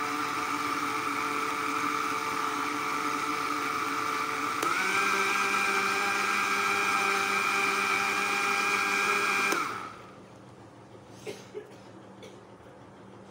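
National electric blender running, whirring through milk, bananas and Oreo cookies to make a milkshake. About halfway through the motor steps up in pitch and gets louder, then it stops abruptly, followed by a few faint clicks.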